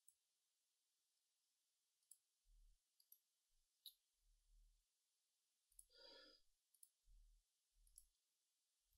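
Near silence: room tone with a few faint, scattered clicks and a brief soft noise about six seconds in.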